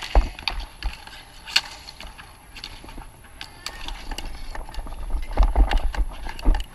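Dek hockey play on a plastic sport-tile court: scattered sharp clacks of sticks and ball striking the tiles and each other, busiest about five seconds in. Low rumbling thumps of wind and body movement on a player-worn action camera run under them.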